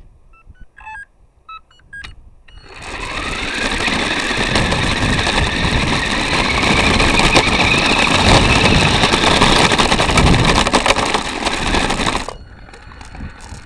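Electric motor and gear train of a Revell Lion 4x4 RC car, heard from a camera riding on the car: after a few faint clicks it starts up with a whine that rises in pitch as the car accelerates, then runs loud and rattly over the paving for about nine seconds. It cuts off abruptly near the end.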